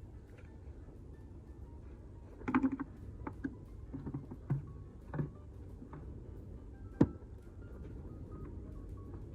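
Hand work on a car headlight cover being fitted: a scatter of short knocks and clicks over a low steady hum, the loudest a single sharp click about seven seconds in.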